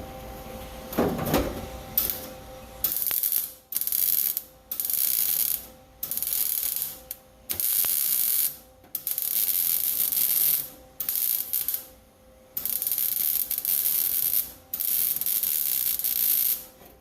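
MIG welder arc crackling in a series of about ten short tack and stitch welds on the sheet-steel floor pan of a Ford F100, each lasting a second or so with short pauses between them.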